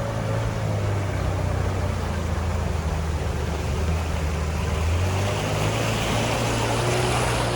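A boat motor running steadily under way, with water rushing past the hull; the engine note shifts slightly about five seconds in as the rushing grows.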